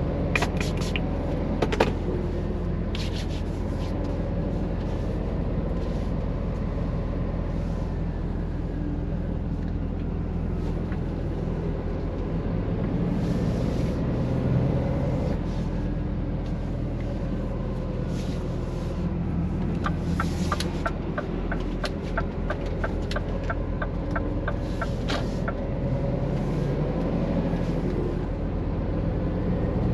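Scania truck's diesel engine heard from inside the cab, running steadily as the loaded truck moves off. A few sharp clicks come near the start, and a run of quick, even ticks lasts several seconds a little past the middle.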